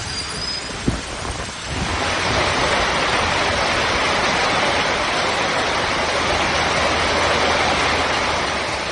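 Heavy rain falling, a steady hiss that grows louder about two seconds in, with a single brief thump about a second in.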